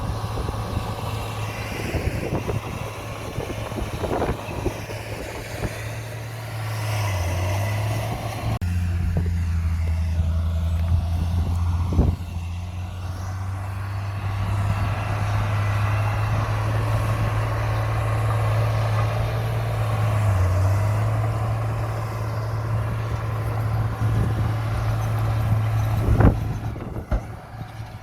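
Heavy diesel earthmoving machinery running, with a steady low engine drone that sags briefly in pitch twice, as if under load. A few sharp metallic clanks are heard, the loudest about twelve seconds in and near the end.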